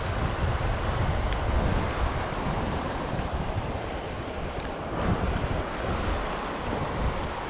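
River water rushing steadily over a rocky ledge, with wind buffeting the microphone in a low rumble.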